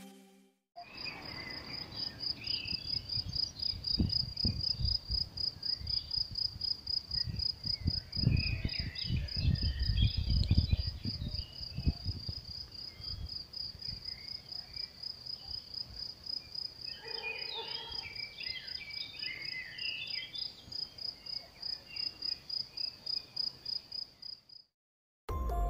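Cricket chirping in a fast, even, high-pitched run that stops shortly before the end, with wind buffeting the microphone now and then and scattered fainter chirps.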